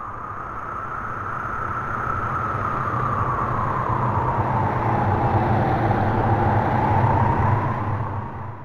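A vehicle passing by as a sound effect: a rumble and hiss that builds for several seconds, peaks about seven seconds in with a slight drop in pitch, then fades away quickly.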